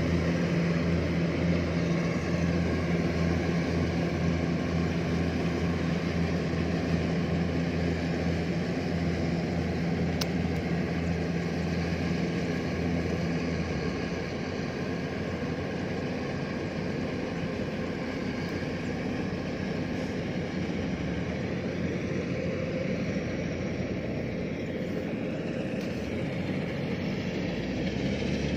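Kubota DC-105X combine harvester's diesel engine running steadily while harvesting rice, a continuous low hum that grows weaker and a little quieter about halfway through.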